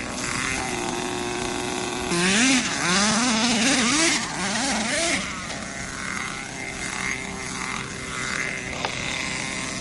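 Small two-stroke nitro engine of an RC monster truck running at a steady idle, then revved up and down several times for about three seconds, then back to idle.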